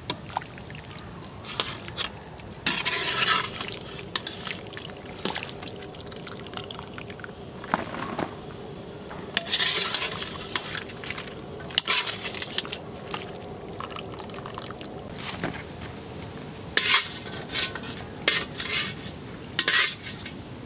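Metal utensils, a wire-mesh strainer and tongs, clinking and scraping in a wok of simmering water as the meat is skimmed and stirred, with splashes of liquid in several short bursts.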